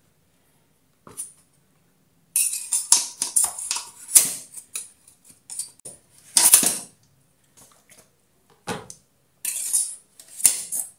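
Long metal tongs clinking and scraping against a stainless steel stockpot and the bamboo tubes as steamed lemang tubes are pulled out of the water, in several separate bursts of metal clatter.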